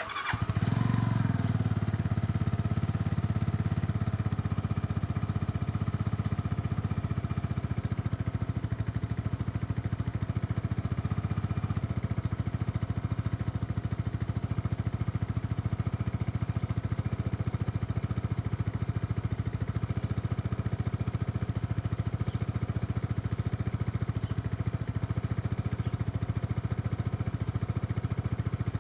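Keeway Superlight 125's single-cylinder four-stroke engine starting right at the beginning and settling into a steady idle.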